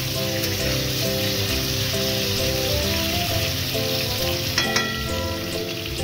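Papaya, potato and green banana pieces sizzling as they fry in oil in an aluminium kadai, turned with a metal spatula. About four and a half seconds in, the spatula knocks the pan with a brief metallic ring. Background music with a melody plays throughout.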